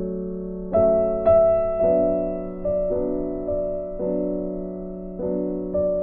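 Slow background piano music: single notes and chords struck every half second to a second, each fading away.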